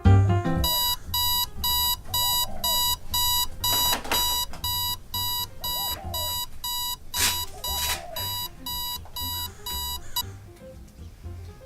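Electronic alarm clock beeping: short, identical high-pitched beeps repeating about two times a second, which stop about ten seconds in.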